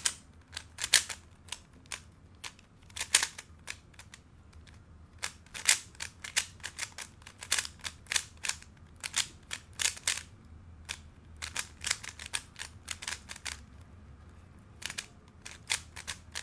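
Moyu RS3M 2020 3x3 speedcube being turned rapidly by hand: quick flurries of sharp plastic clicks as the layers turn, with brief pauses between flurries.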